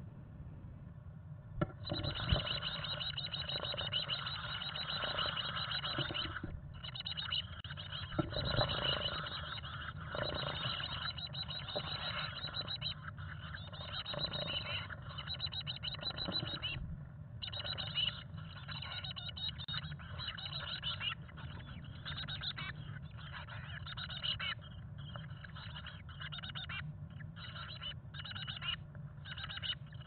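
Chickadee nestlings begging for food inside a wooden nest box: a rapid, high-pitched chatter that starts about two seconds in, just after a couple of knocks, and breaks into shorter bouts in the second half, around a parent's feeding visit. A steady low hum runs underneath.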